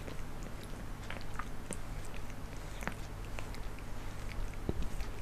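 Black cat grooming itself, its tongue licking its fur in an irregular run of small wet clicks and rasps.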